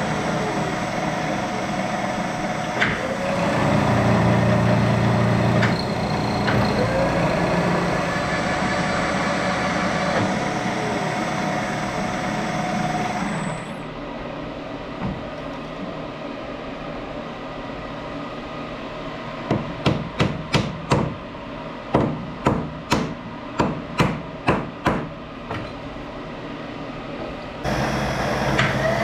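Hammer tapping, about a dozen sharp blows in quick runs, two or three a second, after a machine tool's steady motor sound stops about halfway through. The machine starts running again near the end.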